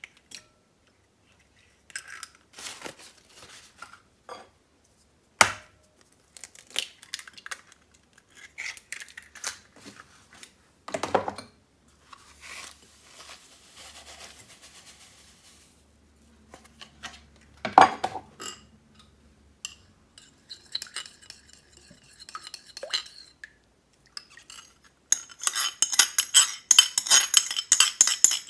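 Kitchen utensils and a mixing bowl clinking and knocking as cake batter ingredients are handled, starting with the eggs. Near the end, a fast, steady run of clicks: a utensil beating against the bowl.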